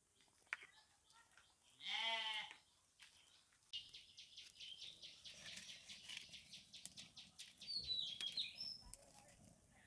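A goat bleats once, briefly, about two seconds in. Then dry palm leaves burning in a mud stove crackle with quick sharp ticks, and a few bird chirps come in near the end.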